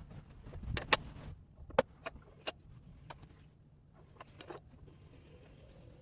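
Workshop clatter of hand tools and parts during motorcycle repair: a series of sharp clicks and knocks, the loudest about one and two seconds in, over a low steady hum.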